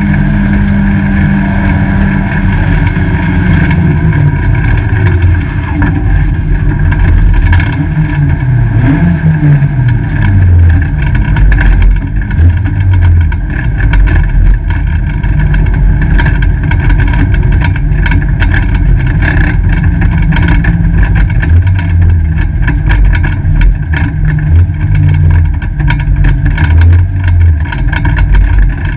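A Peugeot 205 GTi race car's four-cylinder engine heard loud from inside the stripped cabin, its pitch falling early on, rising and falling around the middle, then holding fairly steady. Many short clicks and knocks run over it. Near the end the car is running with a broken gear linkage.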